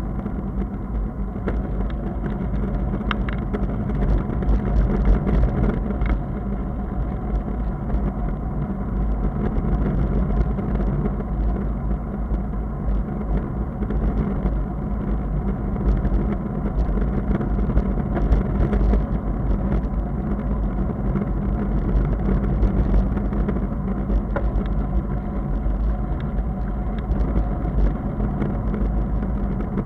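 Steady rumbling wind and rolling noise of a bicycle ride on an asphalt road, picked up by a camera mounted on the bike.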